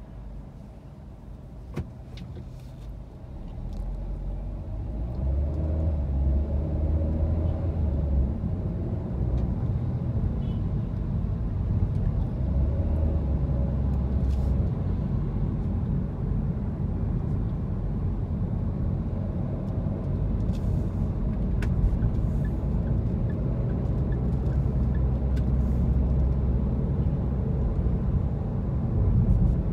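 Car driving in city traffic, heard from inside: a steady low rumble of engine and road noise that swells as the car pulls away about three to five seconds in, then holds steady.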